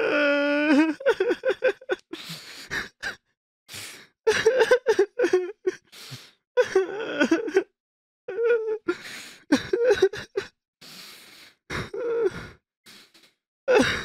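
A person crying hard: wavering, sobbing wails broken by sharp gasping breaths, in short uneven bursts with brief silent gaps between them.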